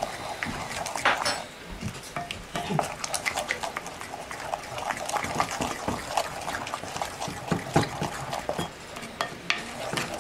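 A utensil stirring thick, wet pesto in a mixing bowl: irregular squelching scrapes and small clicks against the bowl's side.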